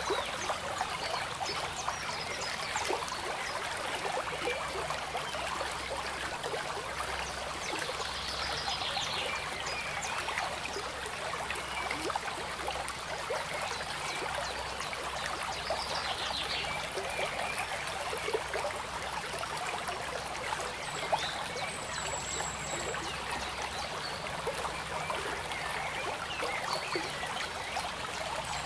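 Copic marker nib scratching across paper in many short shading strokes, making a continuous dry scratchy hiss.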